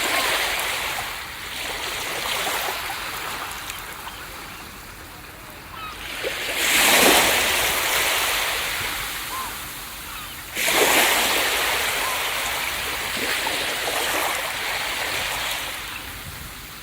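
Ocean waves breaking on a beach: a steady wash of surf, with two bigger waves crashing about a third of the way in and again past the middle, each surge of hiss slowly fading as the water runs back.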